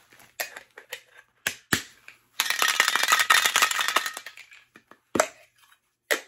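Plastic packaging being handled: a few separate clicks and knocks, then about two seconds of dense, rapid crinkling and crackling that fades away.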